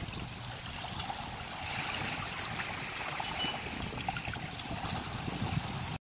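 Small harbour waves lapping and washing against sandstone rocks at the water's edge, with water trickling and gurgling among the rocks, a little louder from about a second and a half in.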